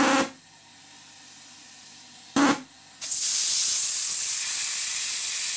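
Steam from a model boiler's pop safety valve blowing off at its 60 psi working pressure: a short puff about two and a half seconds in, then a loud, steady hiss of escaping steam from about three seconds in.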